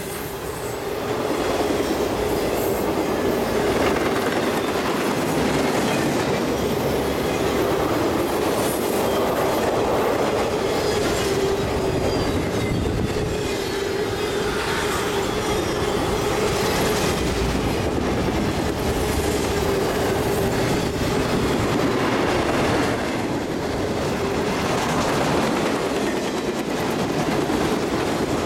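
CSX intermodal freight train's flatcars, loaded with truck trailers, rolling past at speed: a steady rumble and clatter of wheels on rail with a steady whine running underneath, growing louder about a second in.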